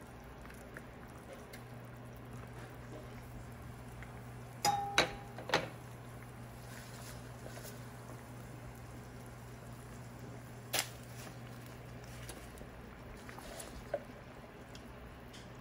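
A metal ladle knocks against the cooking pot holding simmering fish soup: three knocks about five seconds in, one with a short ringing tone, then a single sharp click near eleven seconds. A low steady hum runs underneath and stops about twelve seconds in.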